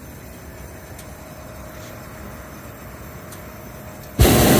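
Hot air balloon's propane burner firing: after a quiet stretch of faint air noise, it cuts in suddenly near the end with a loud, steady blast of hissing noise.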